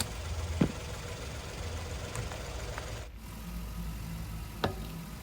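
A few light knocks and clicks as a car wheel is fitted back onto the hub, over a low steady hum.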